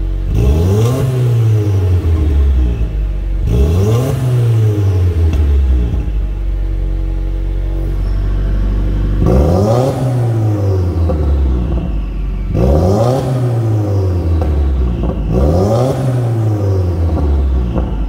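Subaru WRX turbocharged flat-four revved in place five times through a 3-inch turbo-back active exhaust, each rev rising and falling back to idle. The first two revs are in the quieter street mode; after a few seconds of idle, the last three are in race mode with the exhaust valves open.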